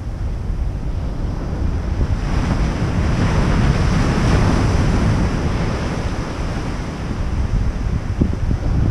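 Ocean waves breaking on a sandy beach. One wave crashes and washes up the sand, loudest about four seconds in, then fades. Wind buffets the microphone throughout.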